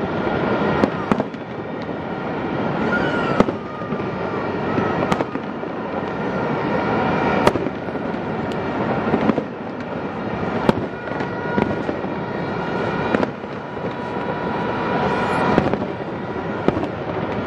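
Fireworks display: a continuous crackling rumble of bursting shells, with sharp bangs every second or two and a few faint whistles.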